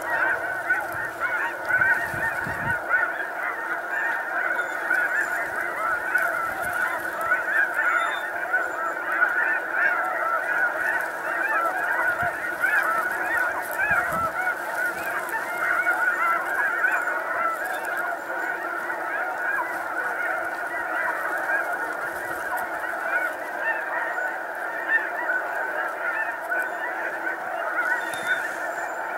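A dense chorus of snow goose calls, many overlapping honks at an even level.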